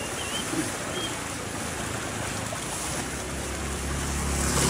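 Steady rushing of fast, turbulent river water pouring under a concrete bridge. A few faint high bird chirps in the first second, and a low motor hum comes in near the end.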